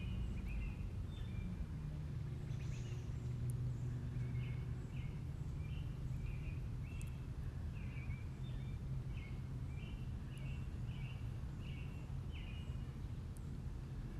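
A bird calling in a series of short, repeated chirps, about two a second, over a steady low rumble.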